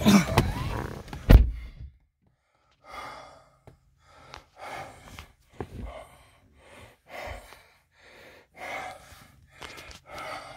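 A car door thuds shut about a second and a half in, then inside the closed cabin a person breathes audibly close to the microphone, a breath roughly every one and a half seconds.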